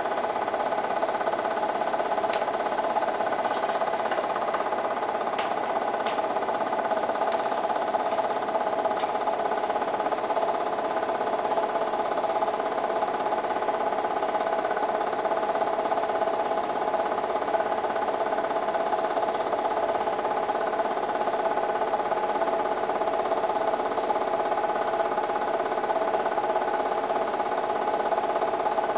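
8mm film projector running steadily, an even mechanical noise from its mechanism.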